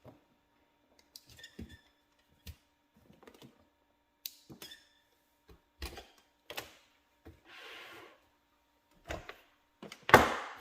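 Scattered clicks and knocks of the Wiz CG glass grinder's parts being handled and taken apart during cleanup, with a brief scraping rush just before 8 seconds and a sharp knock about ten seconds in.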